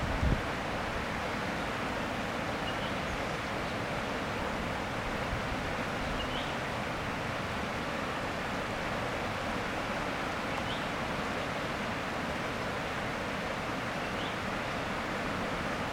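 Steady rush of flowing water, with faint short high chirps every few seconds.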